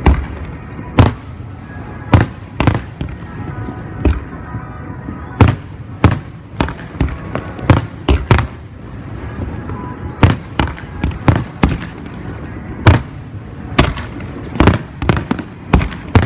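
Aerial fireworks shells bursting in a display, sharp bangs coming irregularly, often one to three a second and sometimes in quick clusters, over a steady murmur of a crowd.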